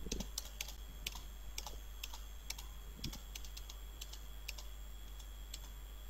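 Faint, irregular clicking of computer keys, a few clicks a second, with a soft low thump at the start and another about three seconds in.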